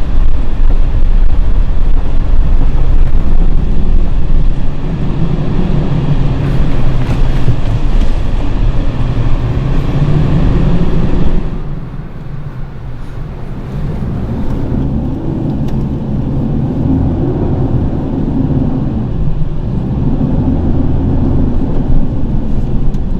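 Mitsubishi Triton pickup's engine and tyres under load on an off-road track, heard from inside the cabin as a loud low rumble. About halfway through the level drops, and the engine runs on more quietly.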